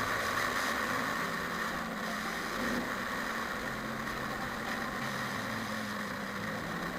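Steady mechanical hum of a running motor, with a low tone that comes and goes every second or so.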